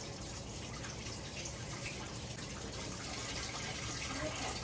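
Kitchen tap running steadily while sticky bread dough is washed off hands under the stream.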